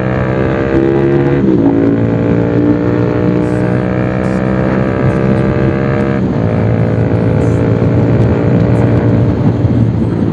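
Bajaj Pulsar 220 single-cylinder engine running through an aftermarket SC Project exhaust while riding. The engine note dips briefly about a second and a half in and shifts again around six seconds.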